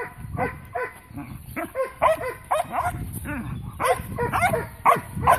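Young dog barking in a rapid string of short, high barks, about two or three a second, getting louder from about two seconds in.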